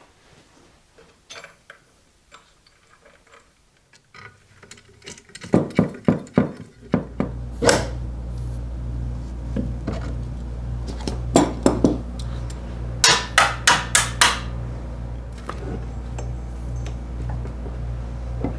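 Scattered taps and knocks, then about seven seconds in the electric motor of a restored 1930s Craftsman bandsaw switches on and runs with a steady low hum. Clusters of sharp metallic clicks sound over it.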